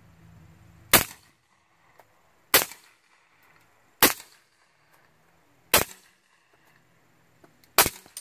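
Five suppressed .45 ACP pistol shots from a Remington 1911 fitted with a SilencerCo Hybrid 46 suppressor. The shots are fired one at a time, about one and a half to two seconds apart.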